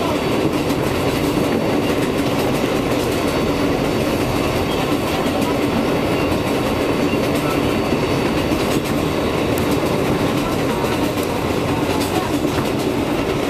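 Inside a New York City R142A subway car running steadily on elevated track: a continuous rumble of wheels on rail with faint steady tones from the running gear and scattered light clicks.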